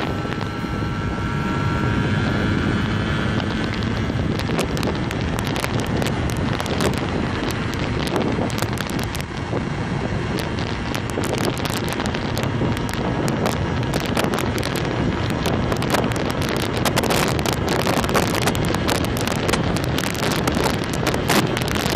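Heavy wind buffeting the microphone as a 1976 Vespino 50S moped is ridden, its small two-stroke engine running underneath.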